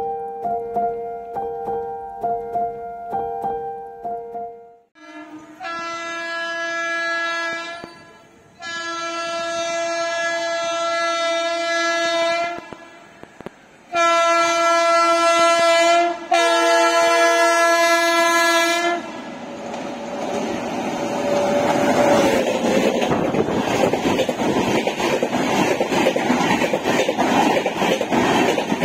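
The tail of background music, then a train horn sounding four long blasts, followed by the steady loud rush of the train's ICF coaches running on the track.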